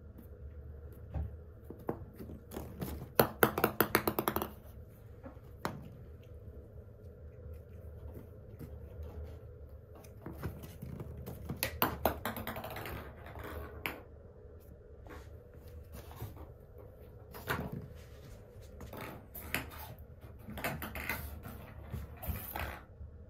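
Kitten batting a small ball around on a corrugated-cardboard scratcher: a quick run of rattling clicks about three seconds in and another cluster near the middle as the ball rolls and bounces, with scattered taps of paws on the cardboard.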